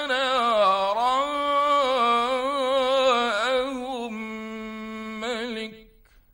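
A man reciting the Quran in the melodic mujawwad style, holding one long, ornamented note that dips, rises and wavers in pitch, settles on a steady tone, trills briefly and stops about six seconds in. It is an old radio recording with a narrow, muffled sound.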